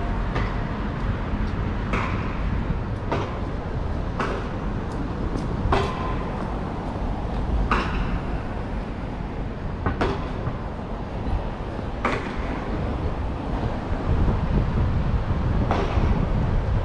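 Street traffic: a steady low rumble of passing vehicles, with a short sharp tick every second or two.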